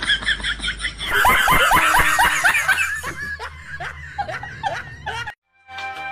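Laughter: a run of quick, high 'ha-ha-ha' bursts that cuts off abruptly about five seconds in. Music starts just after.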